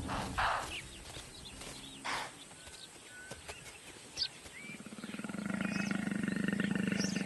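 Three short, sharp snort-like bursts, then a wild animal's low, rasping growl held for about three seconds in the second half.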